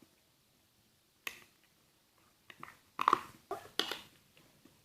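Sticky slime being stirred in a container: short wet smacking sounds, one about a second in and several more close together around three to four seconds in.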